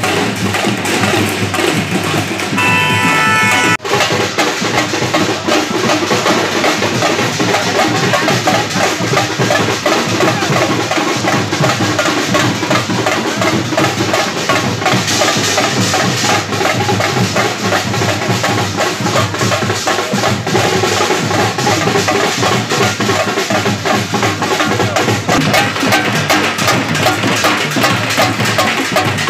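Loud music driven by heavy drumming with a steady beat, briefly dropping out about four seconds in.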